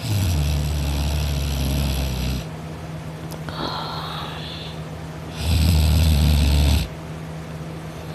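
A sleeping person snoring: two loud snores, the first about two and a half seconds long at the start, the second shorter, past the middle, with a softer breath between them.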